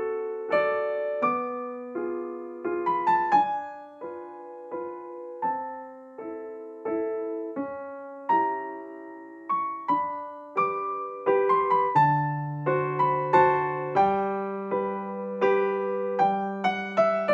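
Background piano music: a slow melody of single struck notes that ring and fade, with lower bass notes joining about twelve seconds in.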